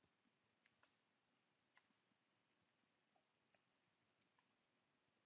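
Near silence with a few faint, scattered computer keyboard keystroke clicks.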